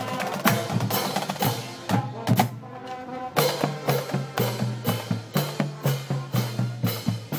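Marching band playing: trombones and other brass over snare and bass drums. After a brief dip a few seconds in, the drums come to the fore, beating a steady march rhythm.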